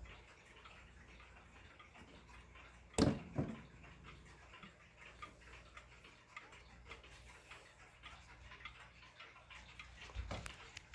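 1975 Jauch triple chime box wall clock's mechanical movement ticking steadily, with two louder knocks about three seconds in and another near the end.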